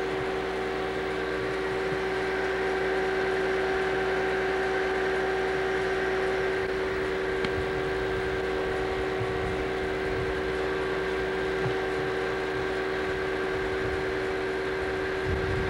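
A steady mechanical hum with several fixed tones, holding an even level throughout.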